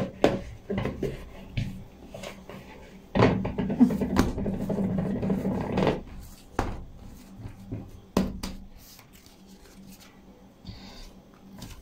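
Soft yeast dough being handled on an oiled countertop: squished and rolled into a log by hand, with a denser stretch of handling noise from about three to six seconds in. Several sharp knocks of a bowl or scraper on the counter.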